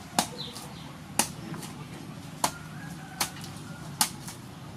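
Sharp knocks, about one a second, from crab cleaning and preparation, with faint chicken clucking in the background.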